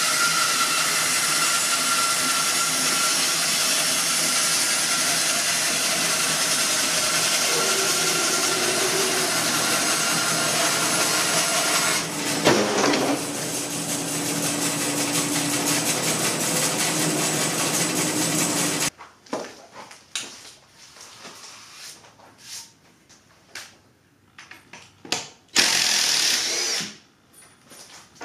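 Grizzly G0513X2 bandsaw running and ripping through a green black-walnut log, a steady loud saw noise that changes about twelve seconds in. It stops abruptly about two-thirds through, and short bursts of a handheld cordless drill follow.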